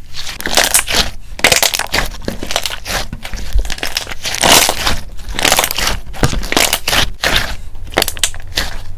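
Clear slime being pressed and stretched with the fingers, giving a continuous stream of sticky crackling and popping snaps.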